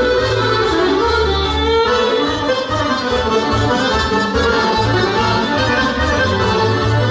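Live Serbian folk band playing a kolo dance tune: accordion leading, with violin and electronic keyboard over a steady beat.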